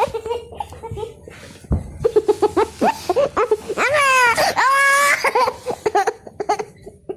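A baby's high-pitched vocalizing: a run of short, quick squeaky pulses, then two long squealing calls one after another near the middle.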